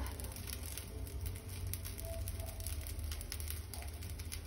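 Metal spoon spreading a sticky cinnamon-sugar and butter filling over rolled-out dough: faint soft scraping and squishing over a steady low hum.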